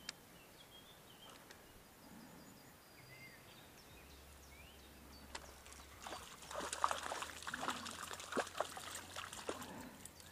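Faint bird chirps, then from about six seconds in, water splashing and trickling with small clicks and knocks: a small trout being brought in and handled at the water's edge.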